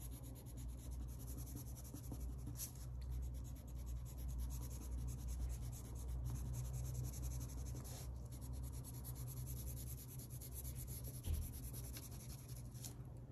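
Colored pencil scribbling on paper in quick back-and-forth shading strokes, filling in small drawings of grass.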